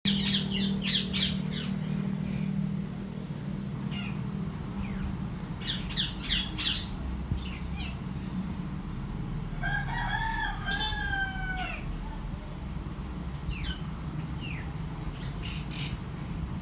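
Indian ringneck parakeet chicks squeaking in clusters of short, high, falling calls while being handled. About ten seconds in, a rooster crows once, for about two seconds. A steady low hum runs underneath.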